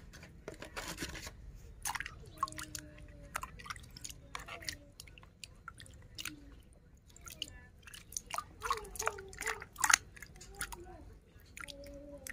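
A hand scrubbing a plastic toy animal in a bucket of muddy water: irregular small splashes, sloshes and wet squelches.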